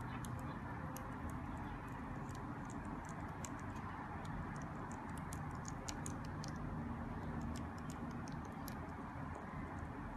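Faint, irregular light ticks and clicks of small hand tools working on a phone chip and logic board during cleaning with alcohol, over a steady low background hum.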